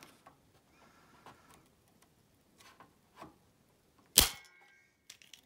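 Spring-loaded desoldering pump (solder sucker) firing once about four seconds in: a sharp snap of the released plunger sucking molten solder out of a circuit-board hole, with a short metallic ring after it. A few faint taps of handling come before it.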